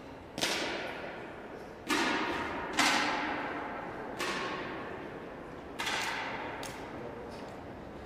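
10 m air pistols being fired by several shooters: five sharp shots at uneven intervals, each trailing off in a long echo through the hall, with a few fainter clicks between them.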